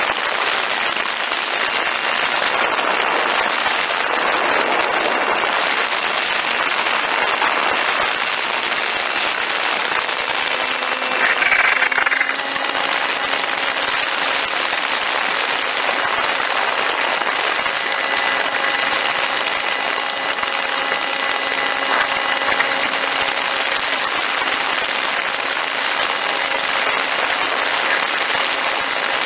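Steady rush of wind and propeller noise on board a Ranger 2000 electric FPV plane in flight, with a faint steady motor whine. A brief louder gust comes about eleven seconds in.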